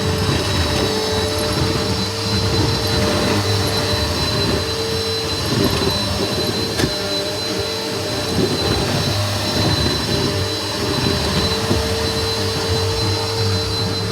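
A vacuum cleaner running steadily with a high-pitched motor whine.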